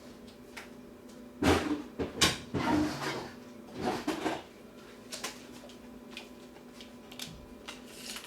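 Handling noises of a tape measure being used on a plastic keyboard: a cluster of knocks and scrapes from about one and a half to four and a half seconds in, then a few light ticks.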